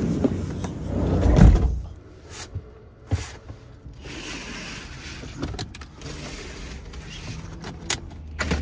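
Camper van door pulled open and shut with a heavy thud about a second and a half in. Then scattered clicks and knocks as the pleated blinds over the cab windows are drawn back.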